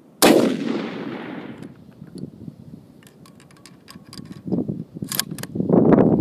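A single rifle shot from an M1903A4 bolt-action .30-06 rifle, ringing away over about a second and a half. A run of sharp metallic clicks follows a few seconds in, then wind buffeting the microphone near the end.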